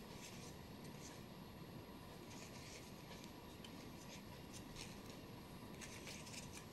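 Scissors cutting into a small thin plastic pot: faint, irregular short scratchy snips and scrapes, with a denser run of them near the end.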